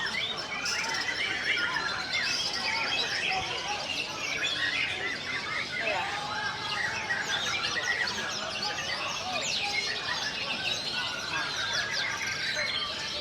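Many white-rumped shamas (murai batu) singing at once: a dense, unbroken tangle of overlapping whistles, trills and chirps.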